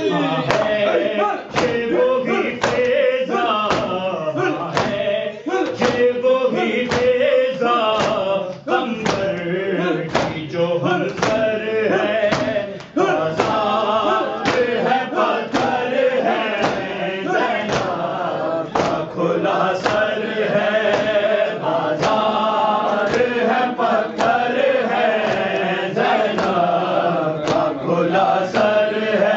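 A noha lament chanted by voices, with a group chanting along, over a steady beat of sharp hand slaps about one and a half a second: the matam chest-beating that keeps time to a noha.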